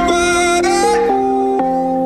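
Electronic music playing back: a bright lead melody slides between notes over sustained chord tones. The lead drops out about halfway through, leaving the held chord.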